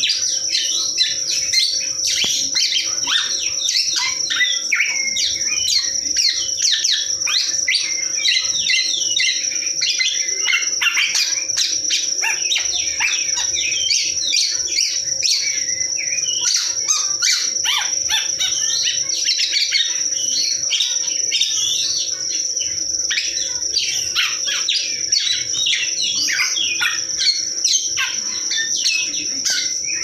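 Caged songbirds chirping and singing in rapid, overlapping phrases, among them a black-naped oriole kept as a trained singing bird. A steady high-pitched tone runs under the birdsong.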